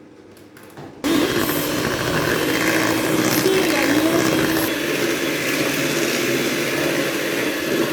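Electric mixer switched on about a second in and running steadily, beating banana cake batter after the milk has gone in.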